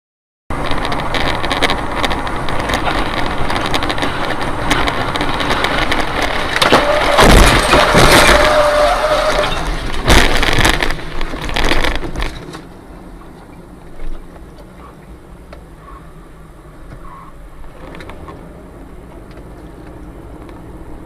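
A crash: loud rushing noise with heavy impacts about seven and ten seconds in. It drops suddenly to a much quieter steady noise about twelve seconds in.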